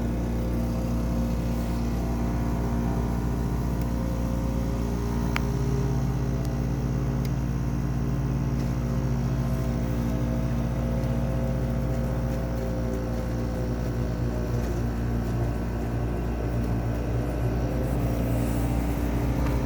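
GE (Haier) 5,100 BTU window air conditioner running with its compressor on: a steady hum and fan noise, with a single click about five seconds in. A lawnmower engine runs outside.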